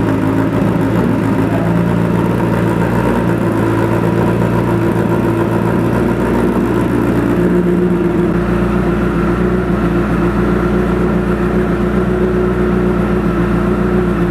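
Honda CBR1000RR inline-four idling steadily on its first cold start through a newly fitted Coffman aftermarket exhaust. The idle note shifts slightly about eight seconds in.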